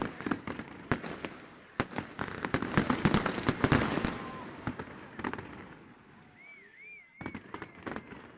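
Fireworks going off overhead: a fast run of bangs and crackling that is densest about three seconds in and then thins out. A brief warbling whistle sounds near the end.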